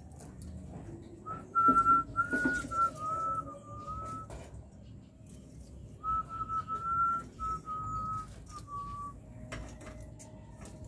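A person whistling a tune in two short phrases of stepping notes, with a few light knocks and rattles of wires being handled.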